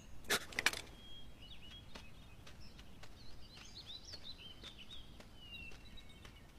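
Birds chirping faintly over quiet woodland background hiss, with a couple of short, louder noises about half a second in.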